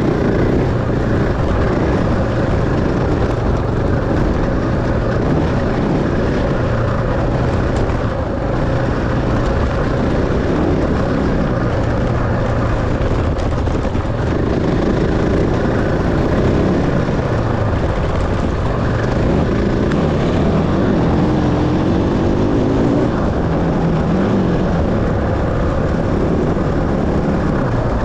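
Enduro dirt bike engine running hard under race load, its pitch rising and falling as the throttle opens and closes.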